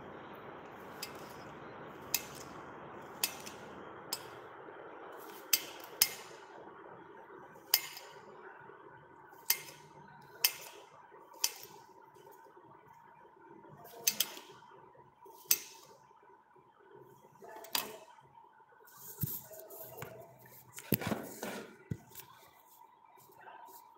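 Steel kitchen utensils and dishes clinking and knocking as they are set down and moved about on a counter, a sharp clink every second or two. Near the end, a cluster of knocks and rustling as the phone is handled.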